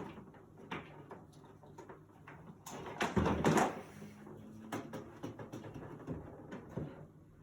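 Handling noises: scattered knocks and clicks, with a louder noisy rush about three seconds in.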